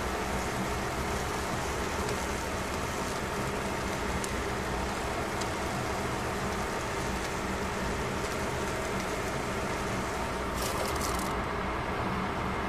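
Steady hiss and hum of fish fillets cooking on foil in a pan, with a few small crackles. About a second before the end comes a brief high clatter, as a glass lid is set on the pan.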